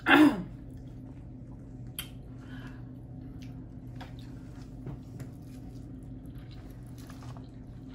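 A person eating spicy instant noodles: soft wet chewing and slurping mouth sounds, with a few small clicks spread through, over a steady low hum.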